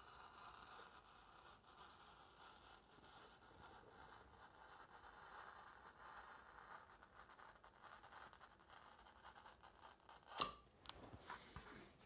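Faint scratching of a hobby knife drawn through paper-faced foam board, cutting a bevel. A sharp click about ten seconds in, followed by a few lighter knocks.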